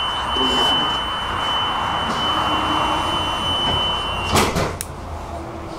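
Tram door-closing warning: one steady high tone that stops after about four seconds, and then the doors shut with a loud knock, followed by a lighter click.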